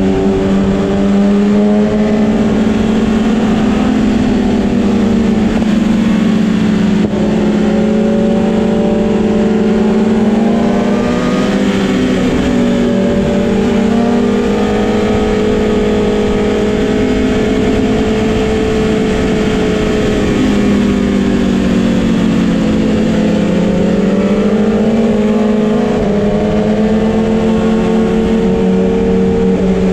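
Sport motorcycle engine running at sustained revs, its pitch dipping and climbing again a few times as the rider rolls off and back on the throttle, over constant wind and road noise.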